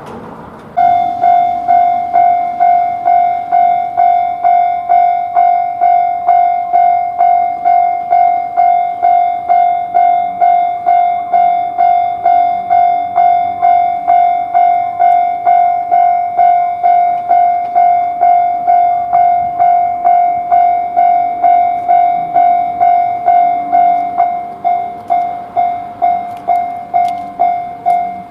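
Japanese railway level-crossing alarm starting suddenly about a second in, then repeating its 'kan-kan' warning tone at about two strokes a second, signalling that a train is approaching. The strokes stand out more sharply in the last few seconds.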